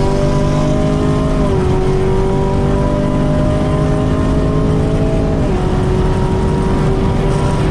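V8 muscle car's engine accelerating hard at highway speed, heard from inside the cabin. Its pitch climbs slowly and drops at upshifts about a second and a half in and again about five and a half seconds in.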